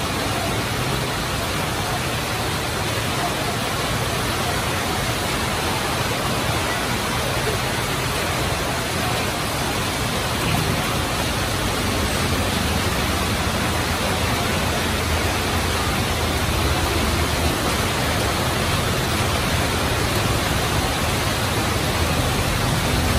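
Very heavy rain pouring down onto a flooded street, a steady dense hiss. A low engine hum swells about halfway through and again near the end as vehicles drive through the floodwater.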